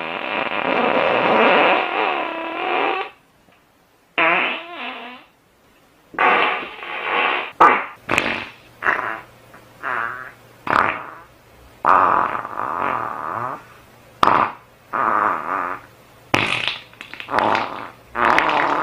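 Farts: one long drawn-out fart lasting about three seconds, then a quick run of a dozen or so shorter farts of varying length with brief pauses between them, the pitch wavering within each.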